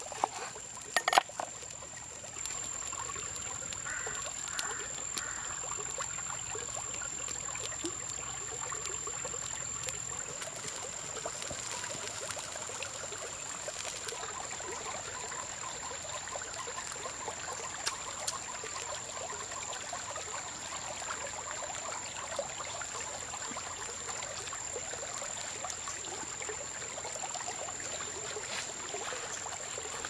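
A kitchen knife chops through limes on a wooden chopping board, two sharp knocks about a second in. Then water boils hard in a wok over a wood fire, a steady bubbling hiss, with a steady high-pitched tone running over it.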